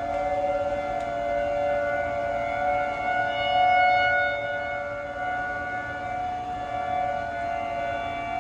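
Federal Signal 2T22 rotating dual-tone outdoor warning siren sounding a steady two-note chord during a siren test. It swells louder about four seconds in as the horn turns past, then eases off.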